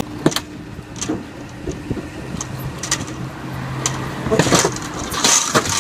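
Street traffic: car engines running with a steady low hum as cars drive past close by, loudest about four to five and a half seconds in. Several sharp clicks or knocks are scattered through it.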